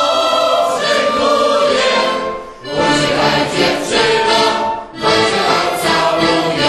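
A choir singing a song in phrases, with brief breaks about two and a half and five seconds in.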